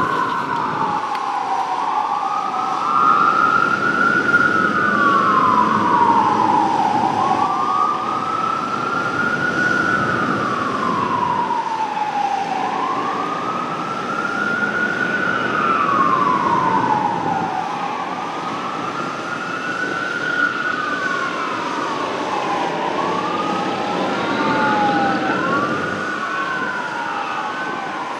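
Fire engine's siren on wail, sweeping slowly up and down about once every five seconds. A second wail overlaps it near the end.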